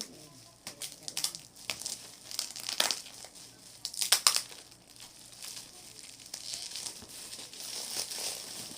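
Packaging crinkling and rustling as it is handled and pulled open, in irregular bursts that are loudest in the first half and turn into a softer, steadier rustle later on.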